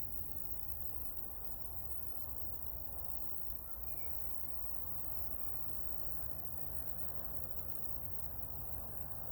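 Outdoor ambience: a steady low rumble with a thin high hiss, and a faint bird call about four seconds in, with a fainter one near the start.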